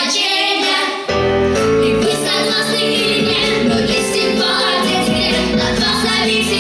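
Vocal trio singing over a backing track. About a second in, a low bass part comes in under the voices.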